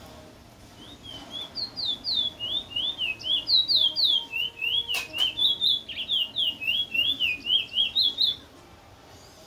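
A bird singing a long run of quick, high, down-slurred notes, mostly in pairs, for about seven seconds before it stops near the end. A single sharp click comes about halfway through.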